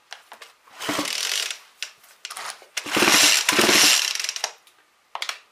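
McCulloch Eager Beaver two-stroke chainsaw engine being cranked on its recoil starter cord with the spark plug out for a spark test, so it spins over freely without compression. There is a short pull about a second in, then a longer, louder one around three seconds, with the starter ratcheting and whirring.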